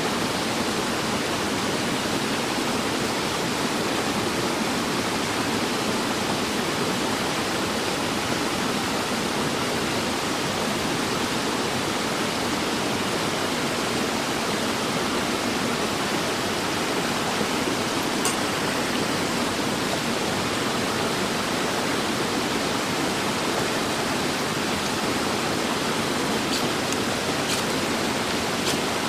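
Steady rush of flowing water, like a nearby stream. Near the end come a few short, sharp scrapes: a knife striking a ferrocerium rod to throw sparks onto char cloth.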